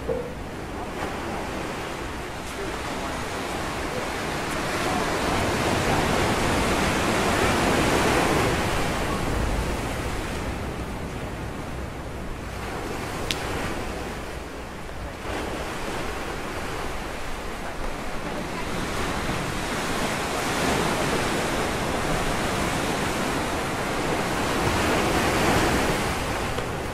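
Ocean surf breaking on rocks and washing back, swelling and fading in slow surges, loudest about eight seconds in and again near the end.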